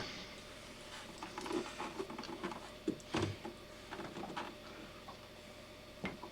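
Scattered light clicks and taps from handling a plastic spa pump housing as it is tightened up, with a louder knock about three seconds in and another near the end.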